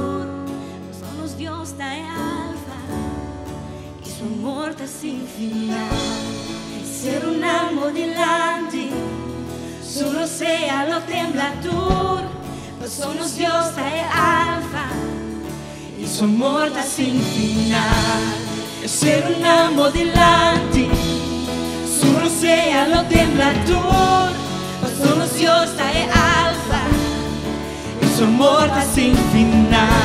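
Live contemporary worship song sung in Papiamentu: a female lead vocal over a band with drums and cymbals. The band builds and gets louder about halfway through.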